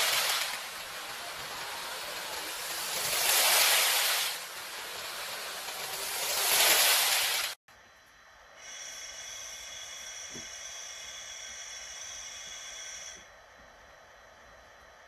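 Rushing whoosh of a model high-speed train running along its track. The whoosh swells and fades three times, then cuts off abruptly about halfway through. It is followed by a quieter steady high whine of several tones that drops off near the end.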